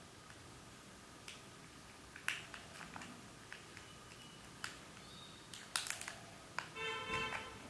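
Thin plastic wrapping crinkling and crackling as it is peeled off a packet of earphones by hand: scattered sharp crackles and clicks, then a short squeak lasting about half a second near the end.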